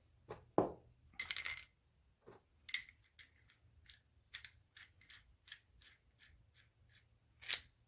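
Small metal parts clinking and tapping as they are handled and fitted together: a string of light irregular clicks, a few with a brief metallic ring.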